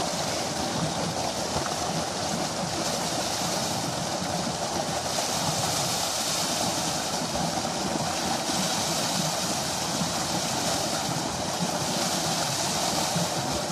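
Tubewell outflow: a thick jet of water gushing from the pipe and pouring into a concrete tank, a steady rushing splash.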